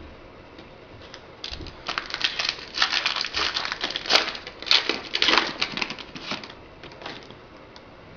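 Crinkling and rustling of a foil trading-card pack wrapper being handled and torn open, a dense run of quick crackles that builds about a second and a half in and dies away near the end.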